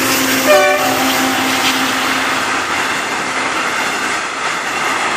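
Passenger train of double-deck coaches behind an Alstom diesel locomotive passing at speed, a steady rush of wheel and rail noise. A short horn note about half a second in, with a steady tone fading over the first two seconds; the horn is a warning to track workers on the line ahead.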